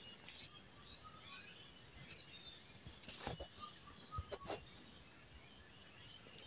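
Near silence: faint background noise with a steady high whine, scattered faint chirps, and a few faint clicks about three and four seconds in.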